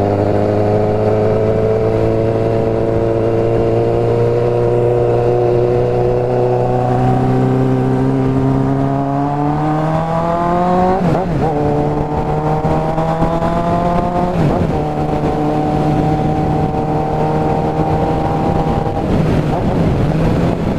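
Suzuki GSX750F inline-four motorcycle engine pulling under acceleration, its pitch climbing steadily, with two quick upshifts about eleven and fourteen seconds in, then holding a steady cruise. The rider says the engine is running rich as it pulls from low revs.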